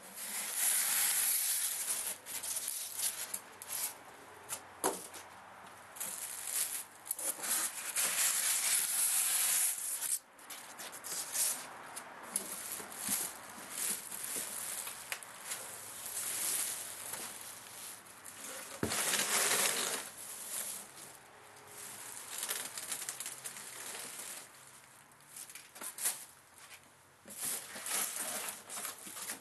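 Clear plastic bag around a portable generator rustling and crinkling in irregular bursts as the bagged generator is handled and lifted out of its cardboard box.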